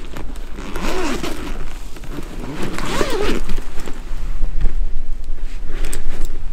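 Zipper on a fabric pet carrier pulled open in two long strokes, about a second in and about three seconds in, each a scraping sound that rises and falls in pitch. In the last couple of seconds a cat crunches dry kibble from a bowl.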